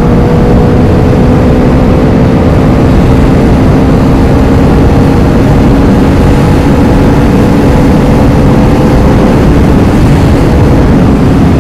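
KTM Duke motorcycle cruising at a steady highway speed: loud wind rush over the helmet chin-mounted phone's microphone with a steady, unchanging engine note underneath.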